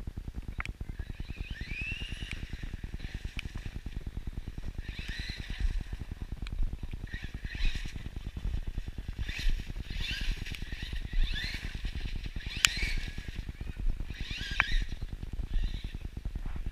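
Axial Yeti XL RC truck's electric drive whining in short bursts, each rising in pitch as the throttle is punched, about ten times. A few sharp clicks, with a fast low fluttering underneath.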